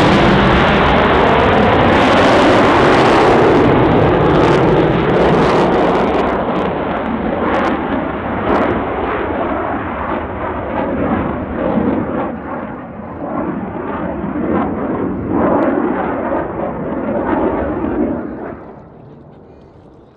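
Jet noise from the CF-18 Hornet's twin General Electric F404 turbofans during a display pass. It is loud at first, with a crackle in the exhaust, then fades gradually as the jet draws away and drops off sharply near the end.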